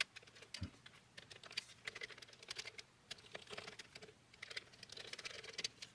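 Typing on a Commodore 64 keyboard: a fast, irregular run of faint key clicks as the keys are tested one after another.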